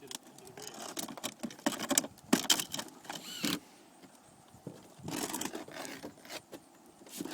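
Stone-coated steel roof tiles being handled and worked: a run of light metallic clatter, clicks and knocks for the first few seconds, a short lull, then scraping and rustling.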